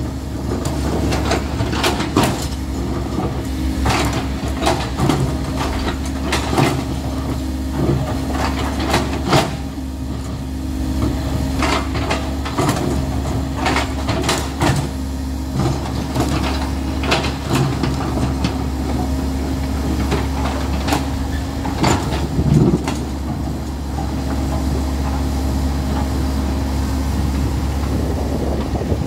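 Komatsu hydraulic excavator's diesel engine running steadily under digging load, with frequent sharp clanks and knocks as the bucket digs through wet rock and mud.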